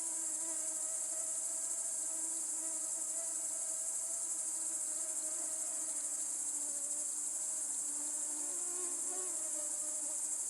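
Summer insects: a steady high-pitched trilling chorus, with the buzz of a flying insect hovering close by, its pitch wavering a little.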